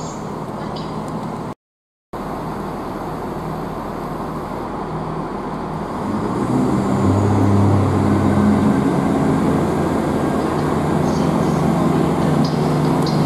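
Diesel multiple unit engines running under the trainshed roof, swelling about six seconds in to a steady low engine drone as a Chiltern Class 165 diesel unit draws slowly into the platform.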